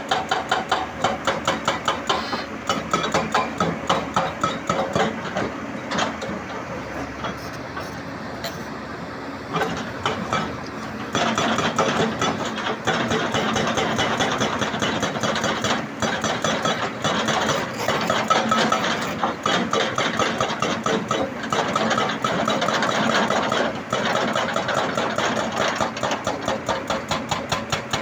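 Hitachi ZX210 hydraulic excavator's diesel engine running with a fast, even clatter, growing louder about eleven seconds in.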